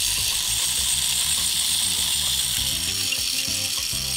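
The clockwork motor of a Tri-ang Hornby R.854 Continental Tank Locomotive running free after being wound part way and its brake let off: a steady whirr of the spring-driven gear train, slowly getting quieter as the spring unwinds.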